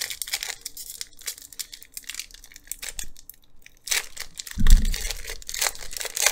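Foil trading-card booster-pack wrapper crinkling and being torn open by hand, the crackling getting busier near the end. A dull thump comes about two-thirds of the way through.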